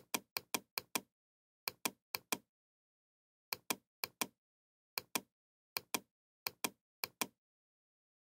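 Computer mouse button clicking: short sharp clicks, mostly in quick press-and-release pairs, coming in clusters with gaps of up to about a second between them.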